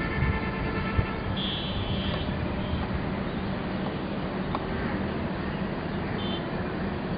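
Steady outdoor background noise with a low hum, and brief high-pitched chirps about a second and a half in and again near the end.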